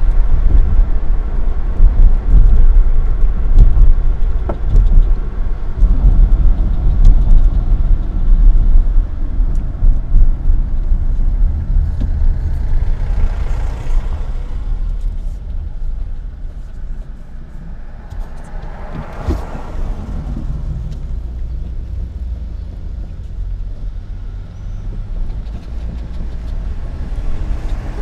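Car driving in city traffic, heard inside the cabin: a heavy low rumble of road and engine noise that eases about halfway through. Twice a broad whoosh swells and fades as traffic passes.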